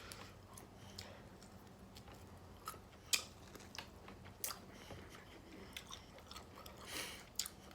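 A person chewing food, with scattered wet mouth clicks and smacks, a few of them sharper.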